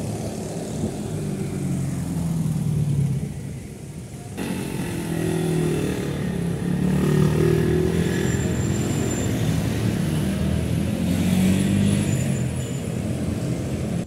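Road traffic: car, truck and motorcycle engines running and passing close by, their low hum rising and falling. The sound changes abruptly about four seconds in.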